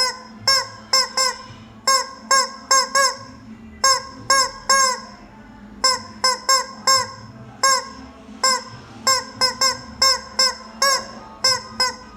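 Rubber chicken squeak toy squeezed over and over, giving about two dozen short honking squawks in uneven runs of two to four.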